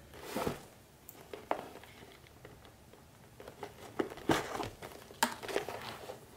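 Hands handling and shifting a partly sewn leather bag: scattered soft rustles of leather and a few small clicks and taps.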